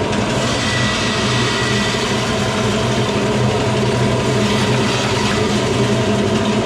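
An 80-year-old bulgur mill running steadily while grinding cracked wheat: a low, even machine hum under a steady grinding hiss.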